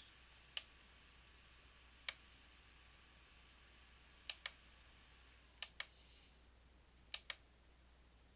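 Computer mouse clicking: two single clicks, then three quick pairs of clicks, over a faint steady low hum.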